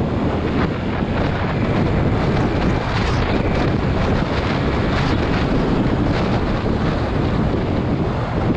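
Steady wind rush buffeting the microphone of a camera on a moving motorcycle, with the bike's engine and tyres running underneath it.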